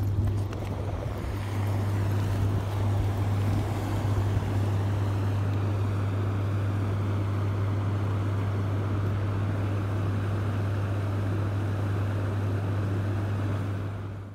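A steady low hum under a constant rushing noise, which cuts off suddenly at the end.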